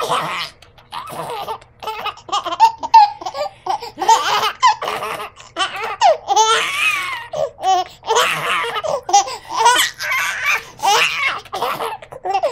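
A baby laughing in a long run of repeated bursts, some of them belly laughs, as he is nuzzled and kissed.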